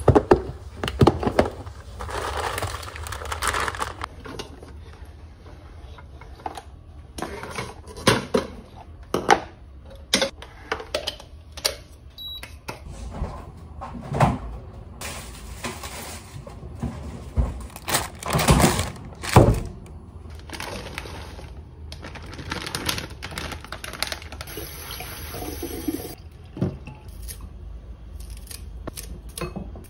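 Kitchen handling sounds: scattered knocks and clatter of containers and dishes, with kitchen scissors snipping spring onions onto a plate near the end.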